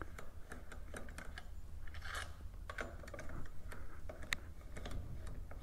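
Hand ratchet clicking in short, irregular runs as bolts that are already loose are backed out, with one sharper tick near the end.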